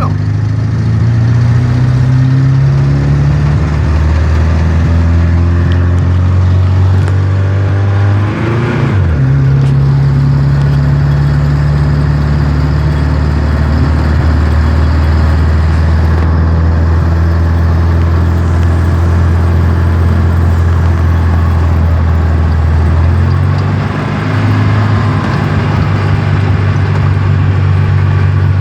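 Car exhaust with the engine idling in a low, steady note; the revs briefly rise and fall about eight seconds in, and the note shifts again later on.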